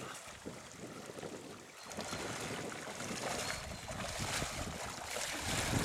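Water splashing and lapping as a person wades through shallow water beside a Bavarian mountain hound puppy paddling, getting louder about two seconds in, with wind rumbling on the microphone.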